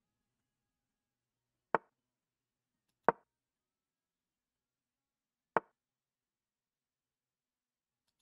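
Online chess move sound effect: four sharp clicks, one for each piece moved on the board, at uneven intervals, two close together after about two seconds, one in the middle and the last at the very end.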